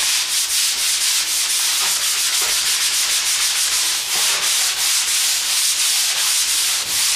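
A sanding sponge rubbed by hand over a drywall repair in quick back-and-forth strokes: a steady, loud, dry scratching hiss. It is ordinary sanding without vacuum extraction, raising a lot of dust.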